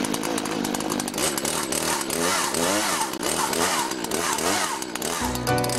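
Chainsaw running and being revved, its pitch swooping up and down again and again. Music with a steady bass line comes in near the end.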